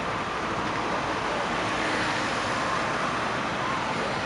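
Cars driving past on a street, a steady mix of engine and tyre noise that swells a little as one car passes close about halfway through.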